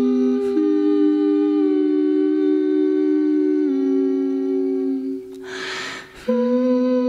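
Two women's voices humming a sustained a cappella harmony, each held note stepping to a new pitch now and then. About five seconds in the humming breaks off for about a second of breathy rushing air, then both voices come straight back in on a new chord.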